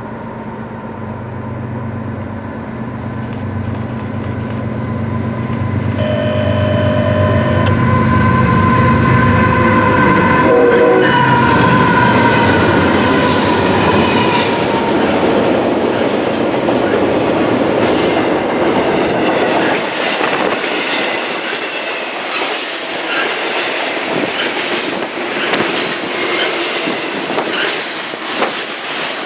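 Diesel locomotives of an intermodal freight train approaching with engines running, their horn sounding briefly about six seconds in and again about ten seconds in, growing louder as they pass close by. Then the train's well cars roll past with rapid clicking wheels and a brief high wheel squeal.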